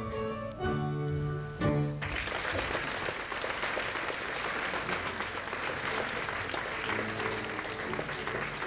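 A band's final held chords ending a song, cut off about two seconds in, then an audience applauding; music comes back in quietly under the clapping near the end.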